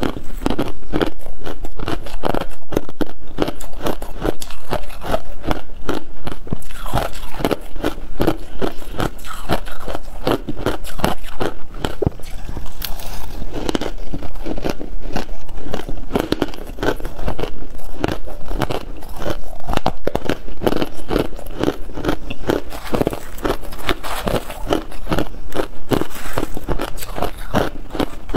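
Close-miked crunching of refrozen freezer frost being bitten and chewed: a dense, continuous run of crisp crunches, several a second.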